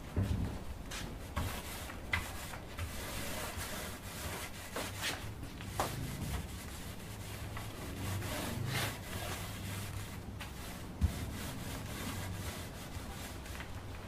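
Small paint roller rubbing paint onto a polystyrene beehive box in irregular strokes, a steady scratchy rubbing, with one sharp knock about three-quarters of the way through.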